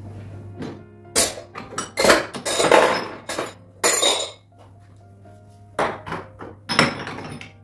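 Dishes and cutlery clattering and clinking as they are handled, in a busy run of knocks followed by two more a few seconds later, over quiet background music.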